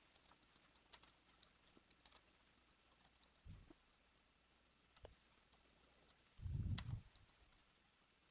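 Faint typing on a computer keyboard: a quick run of light key clicks as an address is entered. There is a brief low muffled sound about three and a half seconds in, and a louder one about six and a half seconds in.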